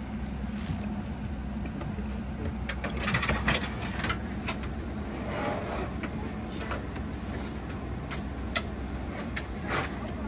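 Boeing 777 cabin ambience while parked for boarding: a steady low hum of the cabin air system, with scattered crinkles and clicks from plastic wrapping being handled near the start.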